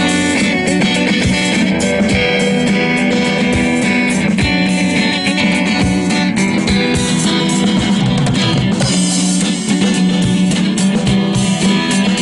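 Instrumental music with a plucked guitar and a drum kit keeping a steady beat.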